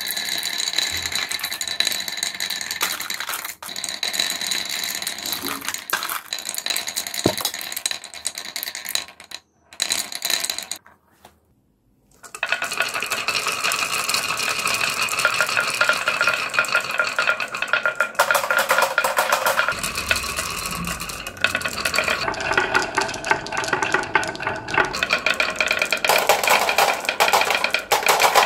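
Marbles rolling along and clicking against one another in the carved channels of a wooden marble-run track: a dense, steady clatter. It stops briefly about eleven seconds in, then comes back thicker as many marbles pile down the track together.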